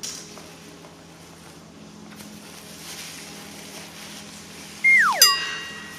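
Low background hiss, then about five seconds in a loud whistle-like sound effect: a tone that holds briefly and then slides sharply down in pitch, overlapped by a ringing tone that fades away.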